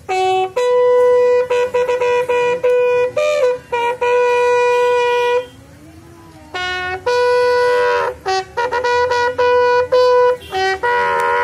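Bugle sounding a funeral salute call. It plays long held notes and quick short ones on a few fixed pitches, pauses for about a second midway, then resumes.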